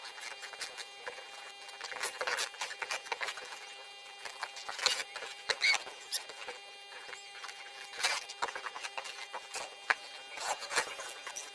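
A cardboard box being worked open by hand: irregular scraping, rustling and clicking with a few short squeaks, loudest around five and eight seconds in.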